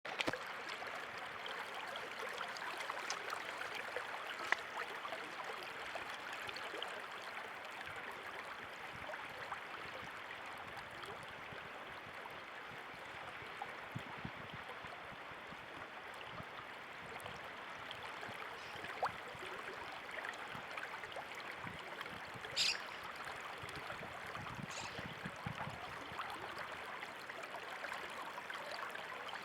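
Flowing water, like a small stream, making a steady rushing sound. A few brief sharp clicks sound over it.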